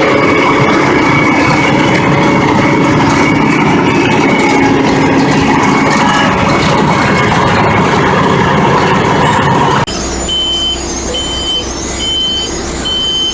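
Loud, dense clatter and rumble of heavy road-paving machinery at work. About ten seconds in it cuts to a quieter running engine with a reversing alarm beeping about once a second.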